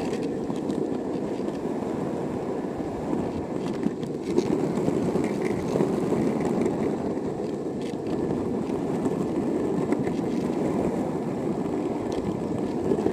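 Skateboard wheels rolling over street asphalt: a steady, coarse rumble, with a couple of small clacks about four seconds in.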